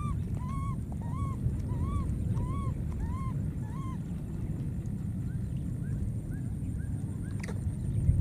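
Infant macaque crying: a run of short, arched, nasal calls, about two a second, that stop after about three seconds and return fainter and higher about five seconds in. A steady low rumble of background noise runs underneath.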